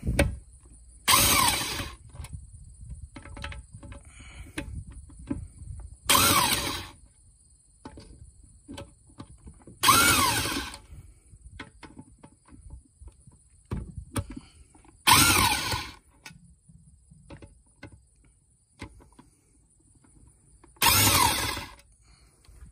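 Power driver with a T27 Torx bit spinning out the oil pump screws on a transmission case: five short bursts, each under a second and several seconds apart, the motor's pitch rising and then falling in each. A faint knock comes between the fourth and fifth burst.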